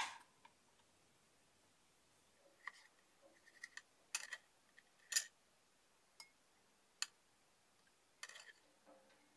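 Kitchen knife cutting a lime and knocking once sharply on the cutting board, followed by a scattering of faint taps and clicks as the lime pieces are handled and put into a glass blender jar.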